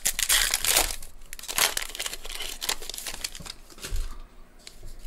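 A baseball-card pack's foil wrapper being torn open and crinkled by hand, in dense crackling bursts over the first two seconds, then fainter rustling.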